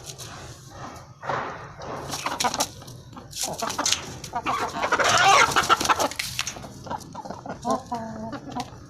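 Aseel chickens clucking and squawking amid irregular scuffling clicks, loudest a little past the middle, with a short pitched call near the end.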